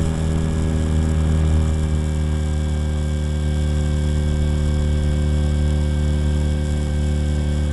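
Blade 400 electric RC helicopter in flight, recorded from a camera on its tail fin: a steady buzzing hum from the spinning main rotor and drivetrain. Its pitch eases down slightly toward the end.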